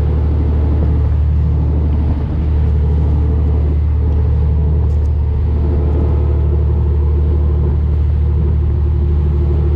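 Boat engine running steadily at speed, a loud low drone, with water rushing in the wake behind the stern.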